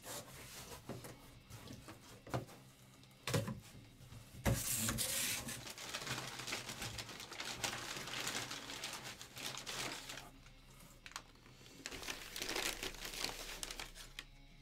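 Brown packing paper crinkling and rustling in the hands as the box's contents are unwrapped, with a few sharp knocks in the first few seconds.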